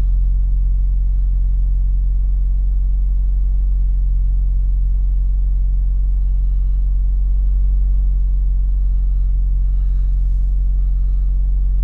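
Toyota Celica GT-Four ST205's 3S-GTE turbocharged four-cylinder engine idling steadily, with no revving. This is its normal idle; the owner's electric noise comes only when the throttle is blipped.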